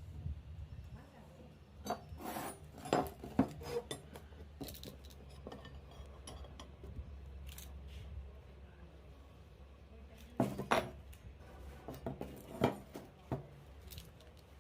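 Metal parts and tools clinking and knocking as they are handled, in two groups of sharp clinks, over a low steady hum.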